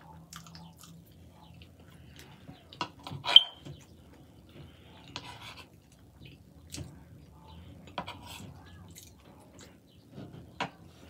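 Close-up eating sounds: chewing of chili cheese fries, with scattered clicks and scrapes of a metal fork against the food and the wooden board. The loudest is a sharp clink about three seconds in.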